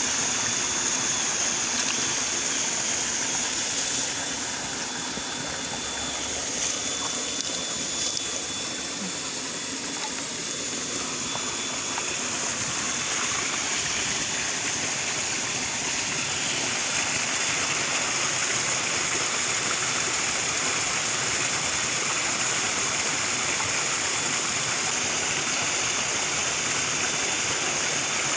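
Small muddy ditch of water running and rippling steadily, a constant rushing hiss.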